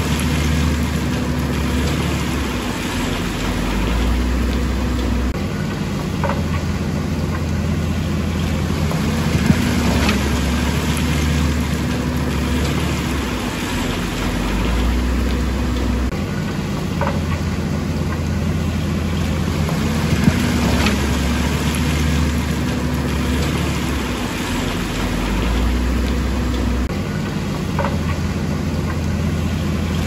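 Heavy diesel engines of a wheel loader and an excavator at work, the engine note stepping up and down every few seconds as they load, with a few short sharp clanks.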